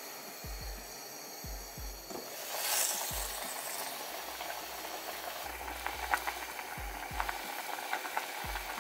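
Kimchi stew boiling hard in a pot: a steady hiss of steam with bubbling pops that grow busier from about four seconds in. Soft low thuds come in pairs every second or so.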